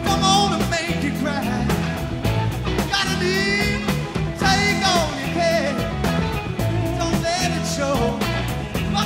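Background rock music with a steady beat, bass and a singing voice.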